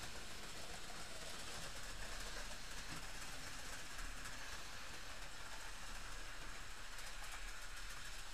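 OO gauge model train running steadily along the track: the small electric motors and wheels of a Bachmann Windhoff MPV with two powered units.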